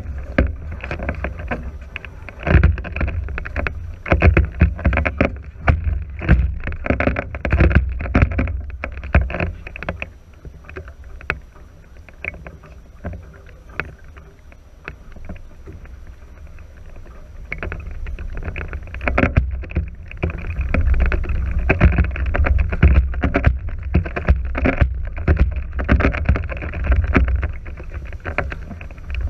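Water rushing and slapping against the hulls of a NACRA 5.0 sailing catamaran under way, with wind rumbling on the microphone and many short sharp splashes. It eases off about a third of the way in and picks up again about two-thirds through.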